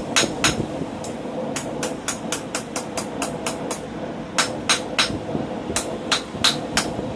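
Hand hammer striking hot steel on an anvil while forging a scroll. Two heavy blows, then a quick run of lighter taps at about four a second, then a few more heavy blows, all over a steady background roar.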